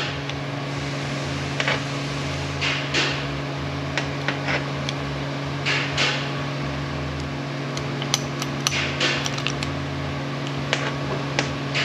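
Scattered small clicks and taps of metal parts being handled and fitted while an air impact wrench is reassembled by hand. A steady low hum runs underneath, and a quick run of taps comes about eight seconds in.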